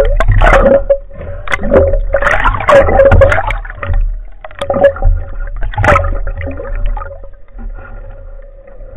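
Underwater handling noise picked up by a speargun-mounted camera: bumps, scrapes and water churning as gloved hands work at the speargun and its shaft. It comes in bursts at the start, around two to three seconds in and again around five to six seconds, then settles. Under it run a steady low rumble and a faint steady hum.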